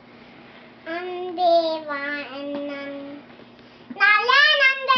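A young girl singing: a soft phrase about a second in, a short pause, then louder sung notes that rise and fall in pitch near the end.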